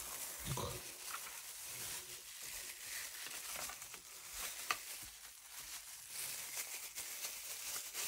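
Thin disposable plastic gloves crinkling and rustling as hands handle a washing machine's drain pump filter, with one sharp click about four and a half seconds in.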